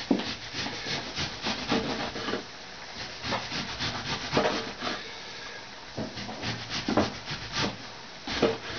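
Kitchen work: irregular rubbing and scraping with a few sharper knocks, as food and utensils are handled.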